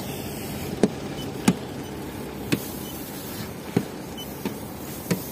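Six short, sharp clicks at uneven intervals of about a second, typical of a paint thickness gauge probe being set against a car's body panels, over a steady background noise.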